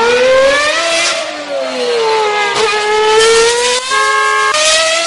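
Car engine revving, its pitch climbing, dipping and climbing again over a few seconds.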